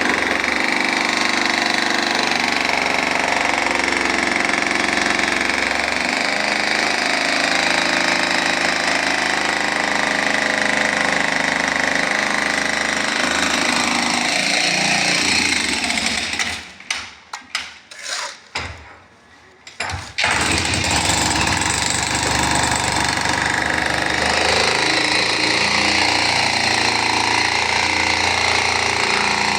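JCB backhoe loader working, its diesel engine running loud and steady. The sound drops away for a few seconds past the middle, with a few short bursts, then resumes.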